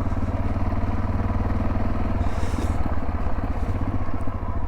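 Yamaha XT660Z Ténéré's single-cylinder engine running at low speed, with a steady, fast thudding beat; its pitch changes about two seconds in.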